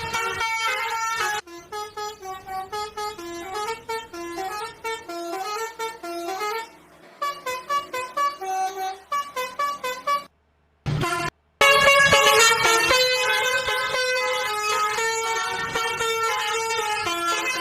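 Basuri 'telolet' multi-tone bus horn playing a melody of stepping notes. It starts with a run of quick short notes, breaks off for about a second, then comes back louder with longer held tones.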